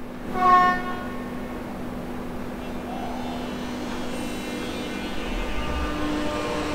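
Melbourne Metro X'Trapolis electric suburban train giving one short horn toot about half a second in as it starts to depart. Its electric drive then hums steadily with a faint whine, and near the end a whine rises in pitch as the train gathers speed.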